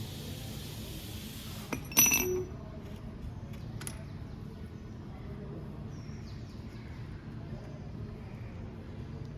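Metal clinking while the rear disc brake is taken apart: a sharp clink with a brief metallic ring about two seconds in, just after a smaller tap, then a lighter click. A low steady hum lies underneath.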